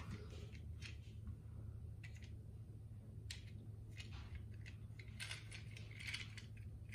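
Faint, scattered clicks of small plastic toys being handled and fiddled with, over a low steady hum.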